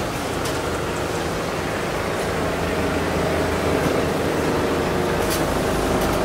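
Industrial quilting machinery running steadily, the nearest being a computerized multi-needle quilting machine, with a fast continuous mechanical clatter and hum. A few short sharp ticks stand out, the clearest about five seconds in.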